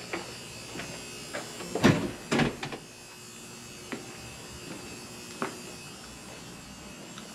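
A heavy door banging shut, two loud thuds about two seconds in, with a few lighter knocks like footsteps, over a steady electrical buzz.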